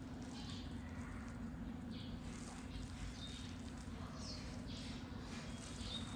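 Small birds chirping in short, irregular calls, some with a brief clear whistled note, over a steady low hum.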